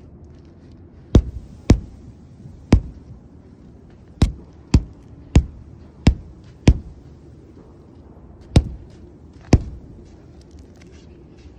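Ice breaking: about ten sharp cracks of ice, each with a short ringing tail, coming singly and in pairs at uneven intervals.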